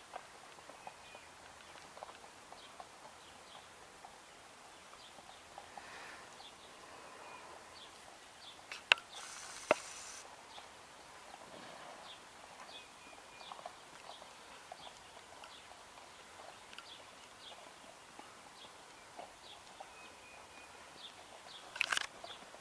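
A horse moving on the ground, its hooves making faint irregular footfalls, with two sharp knocks about nine and ten seconds in and another near the end.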